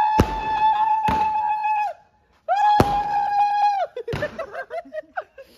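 A 100-shot fireworks cake firing: sharp bangs about a second apart, three in all, over two long, steady, high whistling tones, each a second or two long. Shorter wavering tones follow near the end.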